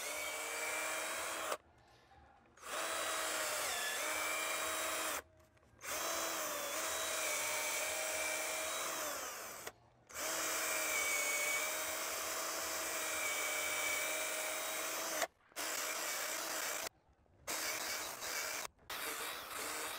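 Cordless drill turning a long drill bit through a wooden post: a steady motor whine that dips slightly in pitch under load, broken by several short stops of complete silence.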